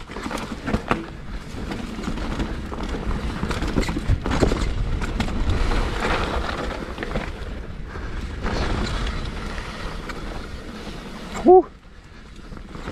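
Scott Gambler downhill mountain bike rolling fast down a muddy dirt trail: tyre noise on dirt with continual rattling and clattering of the chain and frame over roots and rocks. A brief loud squeak about a second before the end.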